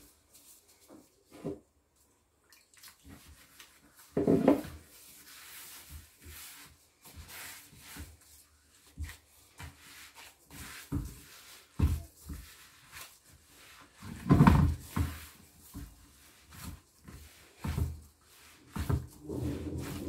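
Gloved hands kneading wet semolina-and-flour bread dough in a large bowl: irregular squishing and rubbing, with two louder bumps about four seconds in and near fifteen seconds.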